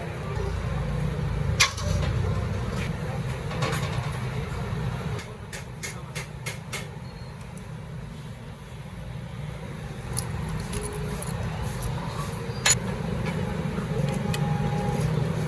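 Metal hand tools clicking and clinking against engine parts while a Honda CD 70 engine is taken apart, with a quick cluster of clicks about a third of the way in and a sharp one near the end, over a steady low rumble.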